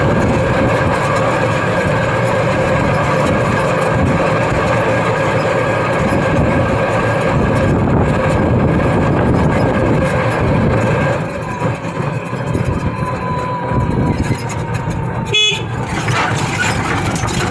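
Road traffic with a vehicle horn held in a long, steady blare for about the first eleven seconds, after which the traffic noise drops and turns uneven.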